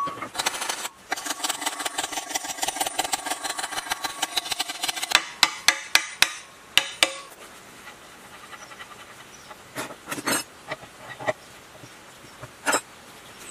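Hammer tapping the armature of a cutting machine into its aluminium gear housing. A fast run of light metallic taps and scraping comes first, then about seven sharp hammer strikes close together around the middle, then a few scattered knocks.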